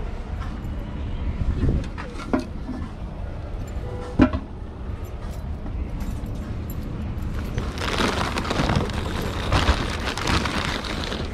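Groceries being loaded into a car's cargo area: a few sharp knocks and clunks in the first half, then the plastic wrap on a case of bottled water crinkling and rustling as it is handled, over a steady low rumble.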